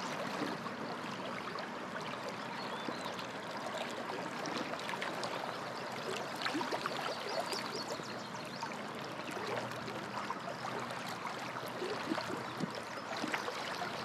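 Shallow river current flowing and gurgling, with many small trickles and splashes.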